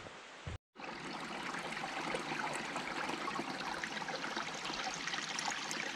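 Small mountain stream running and trickling over rocks, a steady water sound that starts after a brief dropout about half a second in.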